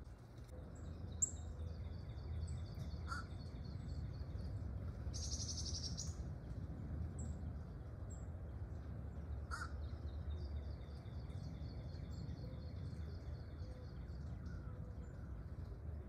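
Wild birds calling: one harsh, buzzy call about five seconds in, scattered short high chirps, and a fast high-pitched pulsing trill that comes and goes, over a steady low rumble.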